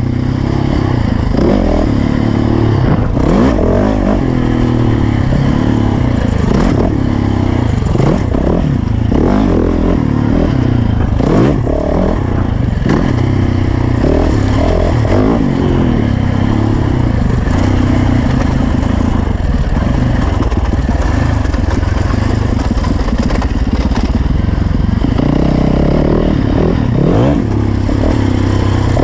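Dirt bike engine running as the bike is ridden along a dirt trail, its pitch rising and falling again and again as the throttle is worked.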